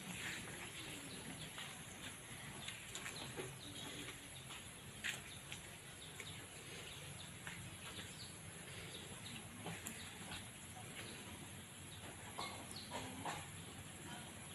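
Faint bird calls and scattered chicken clucks, short and irregular, over quiet outdoor background noise.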